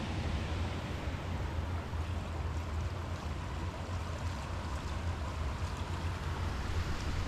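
Steady rush of water pouring through a small concrete drainage channel, mixed with a low rumble of wind buffeting the microphone.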